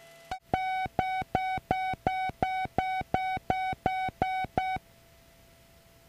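A quick series of about a dozen identical short electronic beeps, roughly three a second, stopping about five seconds in, leaving a faint steady tone.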